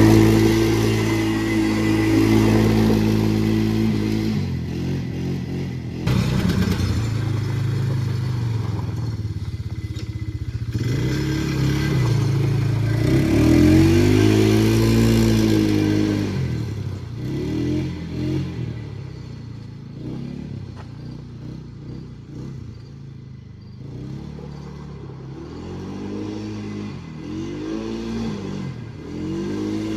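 Polaris Trail Boss 330 ATV engine running, first at a steady speed and then revved up and down again and again as the quad is ridden, with some clatter. It runs somewhat quieter around two-thirds of the way through, then picks up again.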